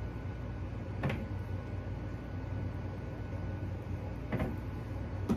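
Raw lamb chops handled and turned over on a wire cooling rack, giving two faint knocks, about a second in and near the end, over a steady low hum.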